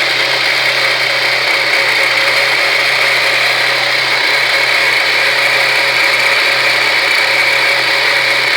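Steady whirring rush from a Saturn Ion Red Line, with a faint constant tone and no change in pitch: the weird noise that the owner is trying to track down.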